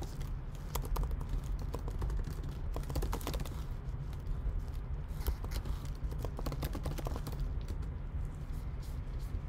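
Typing on a computer keyboard: irregular runs of key clicks, over a low steady hum.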